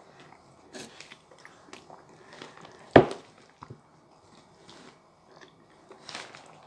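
Two people biting and chewing into curry-filled bread buns face-first, with scattered small crunching clicks and one loud knock about three seconds in.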